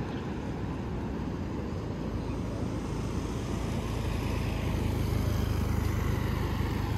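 Steady rushing of wind and surf on a beach, with a low rumble of wind on the microphone, slowly growing louder about halfway through.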